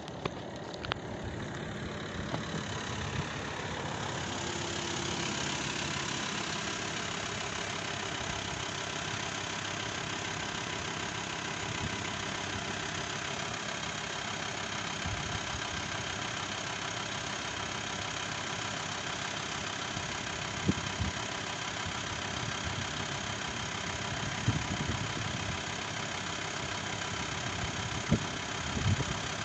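Van engine idling close by: a steady, even running sound that builds over the first few seconds and then holds, with a few light clicks later on.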